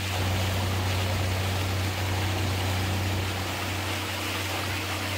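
Boat motor running with a steady low hum, water rushing past the hull as a constant hiss.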